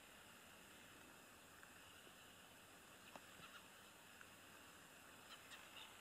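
Near silence: faint outdoor hiss, with a few faint short high-pitched chirps in the second half.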